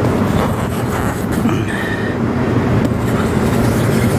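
Steady, loud low rumble with a constant hum running under it, like a machine or engine running.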